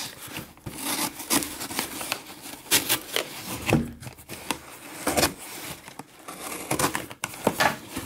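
Cardboard shipping box being cut open along its packing tape with a small utility blade and its flaps pulled open by hand: irregular scraping and rubbing of cardboard and tape, with several sharp knocks as the box is handled.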